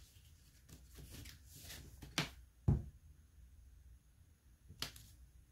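Handling noise from a hardcover book: faint rustling of its glossy dust jacket as it is turned, and a few light knocks, the loudest a dull thud about halfway through as the book is stood upright on the laminate countertop.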